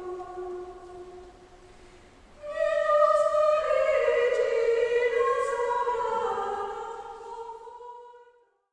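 Slow choral singing: a held chord fades away, then a louder sung phrase enters about two and a half seconds in and dies away near the end.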